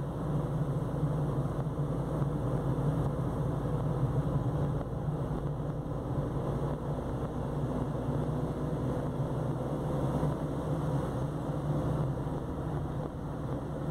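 Steady engine hum and tyre-on-road noise of a car heard from inside its cabin, the engine pulling up a winding climb.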